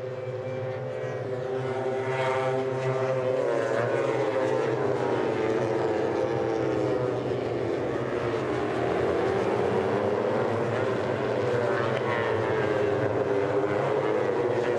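Engines of several 250cc sport racing motorcycles (Honda CBR250RR and Yamaha R25 parallel twins) running together, their overlapping pitches rising and falling as the riders brake and accelerate through corners.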